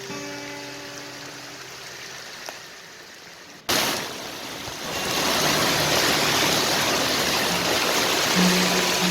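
Soft background music fades for a few seconds, then cuts off abruptly to heavy rain pouring down, a loud, steady, dense hiss that carries on to the end.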